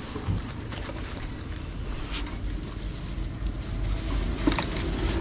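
Steady low rumble with wind noise on the microphone and a few faint knocks, growing a little louder near the end.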